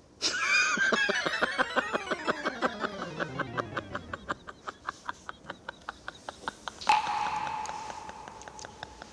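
Edited variety-show background music and comic sound effects: a sliding tone falls over the first few seconds over a rapid run of short, evenly spaced notes, then a held high tone sounds from about seven seconds in.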